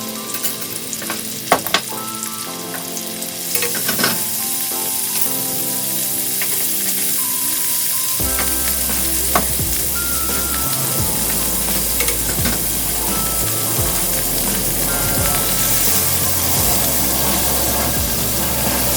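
Food sizzling in a hot frying pan as it is stir-fried, the hiss growing fuller after a few seconds, with a few sharp utensil clicks early on. Background music plays throughout, with a bass line coming in partway through.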